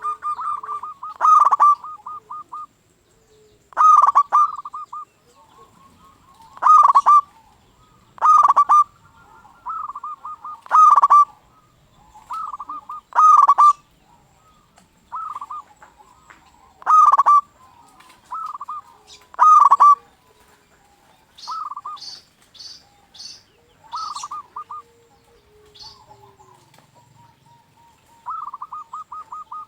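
Zebra dove (perkutut) cooing over and over: a loud staccato coo phrase every two to three seconds, each ending in a quick run of short pulsed notes. A few short, high chirps come in about two-thirds of the way through, and a softer rapid pulsed run comes near the end.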